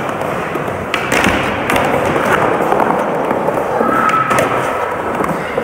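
Skateboard rolling on a smooth skatepark floor: a steady wheel rumble with scattered clacks and knocks, and a short high squeak about four seconds in.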